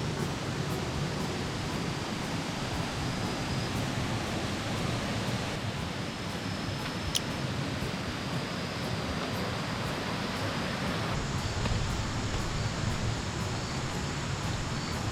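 Steady rushing noise of a waterfall, its water falling continuously, the tone shifting slightly twice.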